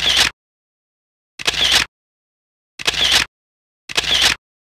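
Four short bursts of noise, each about half a second long and spaced roughly a second and a half apart, with dead silence between them, as in edited-in sound effects.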